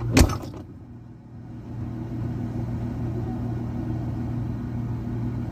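A sharp knock, then a steady low mechanical hum that grows louder about a second and a half in.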